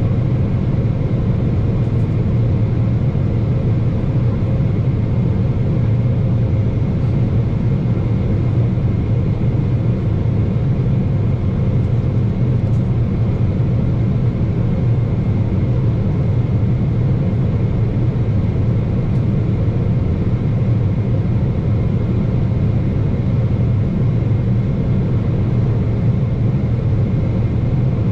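Steady cabin noise of a Boeing 777-300ER on its approach descent, heard from inside at a window seat by the wing: a deep, even rumble of airflow and the GE90-115B turbofans, with a faint steady whine above it.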